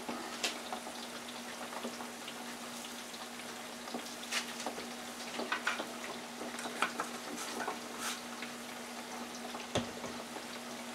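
French fries sizzling in hot olive oil in an electric deep fryer: a steady frying hiss with occasional sharp clicks, over a steady low hum.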